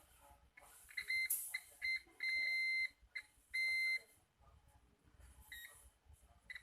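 Digital multimeter's continuity buzzer beeping as its probes touch capacitors on a phone circuit board: a few short beeps about a second in, then two longer steady beeps. A beep across a capacitor signals a short or near-zero resistance.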